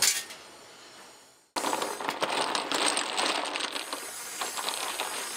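A sharp hit right at the start that fades away, then, from about a second and a half in, turned wooden tool handles clattering and knocking against each other as a hand rummages through them in a cardboard box.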